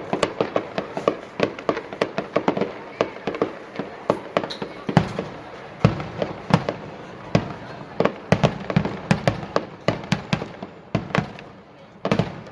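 Fireworks display: a rapid, dense run of bangs and crackles from bursting shells, with heavier, deeper booms from about five seconds in.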